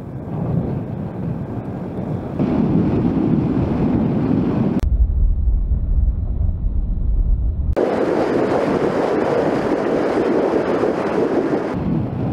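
Wind rushing over the microphone of a scooter-mounted camera while riding, a loud, even rush. For about three seconds in the middle it turns into a deep, muffled rumble.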